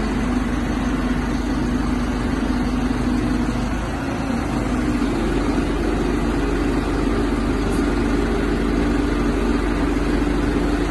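Crane truck's engine running steadily, its pitch rising a little about five seconds in as it powers the lift.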